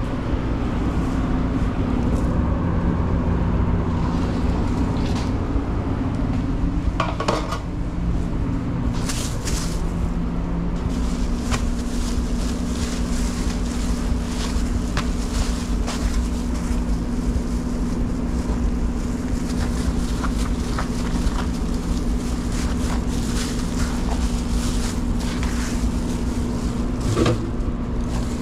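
Steady low hum of commercial kitchen equipment, with scattered rustles and light clicks from gloved hands handling wrap paper, a pita and utensils.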